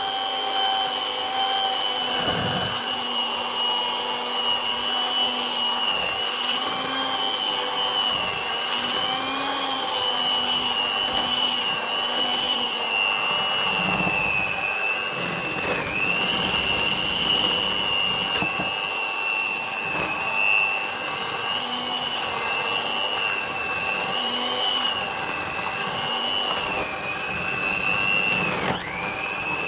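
Electric hand mixer running steadily, its beaters churning thick thawed milk cream (malai) in an aluminium pot. The motor's whine wavers in pitch and dips briefly twice, about halfway and near the end.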